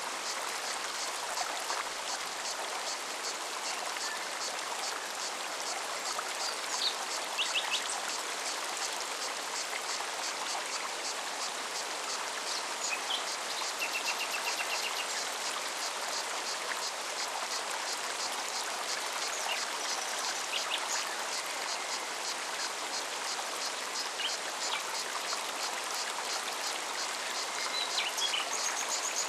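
Mountain forest stream running steadily. Over it, a cicada's high song pulses about three times a second, and short bird calls come now and then.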